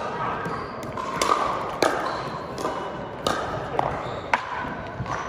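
Hard plastic pickleballs being struck by paddles and bouncing on the wooden gym floor: a string of sharp, hollow knocks, several over a few seconds, each with a short echo in the large hall, over background chatter.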